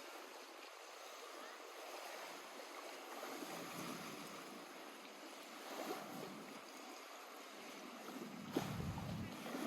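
Lake water lapping gently at the shore, a soft steady wash that swells with a louder lap about six seconds in and again near the end.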